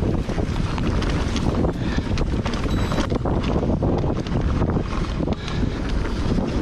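Wind buffeting the microphone on a Santa Cruz Megatower full-suspension mountain bike descending a bike-park trail, with tyres rolling over dirt and the chain and frame rattling over bumps in quick, uneven knocks.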